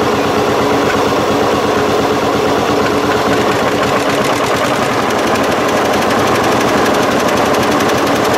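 Tractor engine running fast, its exhaust a rapid, even staccato of firing beats.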